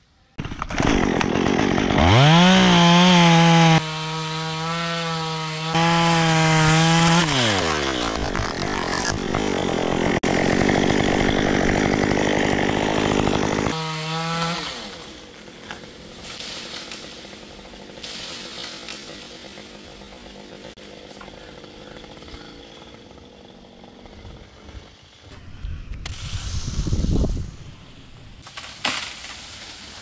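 Two-stroke Stihl chainsaw revving up to full speed about two seconds in and holding there for several seconds, then its pitch drops and wavers as it cuts into eucalyptus wood. It revs briefly again near the middle, then falls back to a lower, quieter running level, with one louder rising swell near the end.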